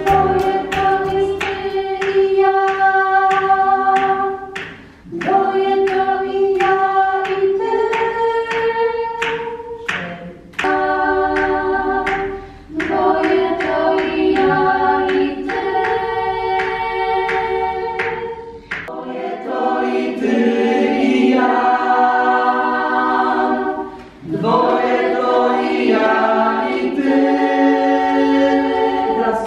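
Small vocal ensemble singing held chords together, phrase by phrase, with short breaks between phrases.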